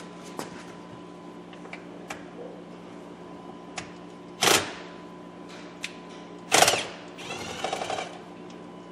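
Cordless drill-driver run in short bursts to back out the small 7 mm screws of a steering column cover. Two loud bursts about two seconds apart come about halfway through, then a second of uneven whirring, with light clicks and knocks of handling in between.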